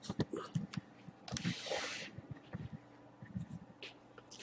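Handling noise from a handheld camera being moved: scattered light clicks and knocks, with a brief rustle about a second and a half in.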